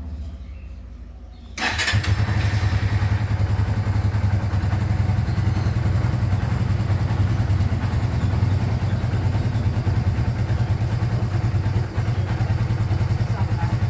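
Kawasaki W175's single-cylinder engine catching about a second and a half in and then running at a steady, even idle. It is a cold start without the choke, on an engine known for hard cold starting.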